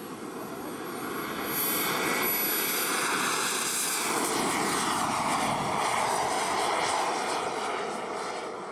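Turbine engine of a large radio-controlled model F-16 jet at full power on its takeoff run and climb-out: a high whine over a rushing jet noise that grows louder over the first two seconds as the jet passes, then eases off a little near the end as it climbs away.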